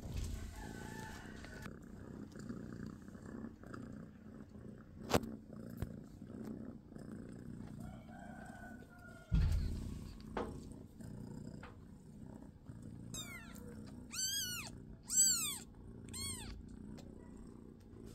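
Cat purring steadily, with a sharp knock about five seconds in and a thump just past nine seconds. Near the end a newborn kitten cries four times, short high mews that rise and fall.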